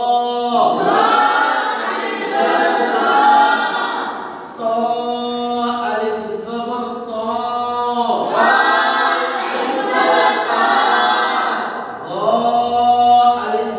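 A group of boys reciting their Quran lesson aloud together in a chanting, sing-song chorus, in long phrases with two short breaks for breath.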